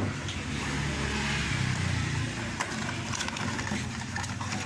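A car engine running, its low drone swelling over the first two seconds or so and then easing off.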